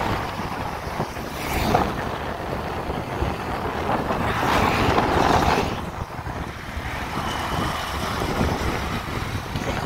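Wind rushing over the microphone with road and engine noise from a moving vehicle, swelling louder for a couple of seconds about four seconds in.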